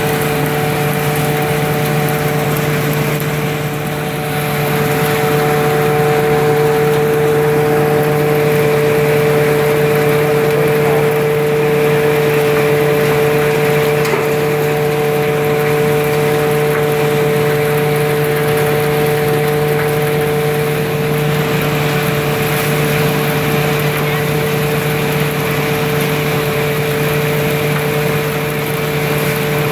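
Threshing machine running steadily with a constant-pitched drone as dry Job's tears stalks are fed into it for threshing.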